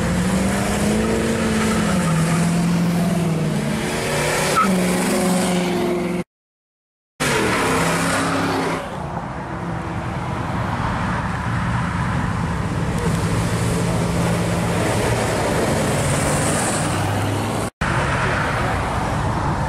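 Classic hot rod and muscle cars driving past one after another with their engines pulling hard: a red hot rod roadster, whose engine note rises and dips as it accelerates away, then a Corvette, then a first-generation Camaro. The sound is broken twice by brief dead silences where the clips are cut together.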